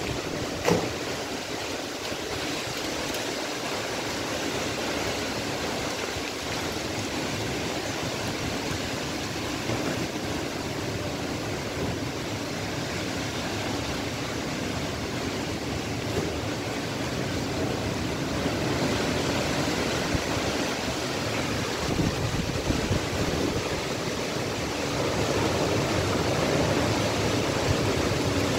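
Strong dust-storm wind blowing steadily through trees and buffeting the microphone, with a short knock about a second in and growing a little louder near the end.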